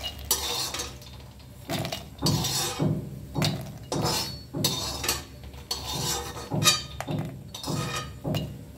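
Perforated steel skimmer scooping dry-roasted makhana (fox nuts) from a kadhai and tipping them into a steel mixer-grinder jar: repeated metal scrapes and clinks, a little under two a second, with the light seeds rattling into the jar.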